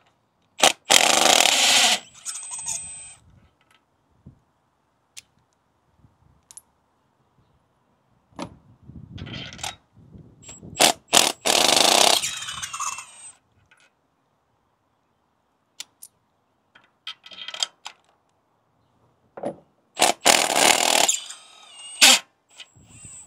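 Cordless Milwaukee M12 FUEL impact gun with a spark plug socket, hammering in three short runs of about two seconds each to break the spark plugs loose and spin them out of the cylinder head. Faint clicks of the socket and extension come between the runs.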